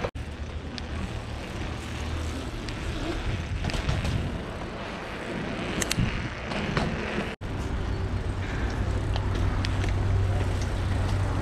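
Mountain bike ridden over paving stones and asphalt: steady tyre rumble and wind noise on the microphone, with occasional short clicks and rattles. The sound drops out briefly about seven seconds in.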